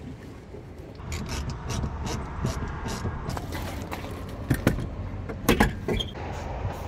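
Clicks, knocks and rustling as car seats and seat-belt hardware are handled and worked loose, with a few sharper knocks in the second half.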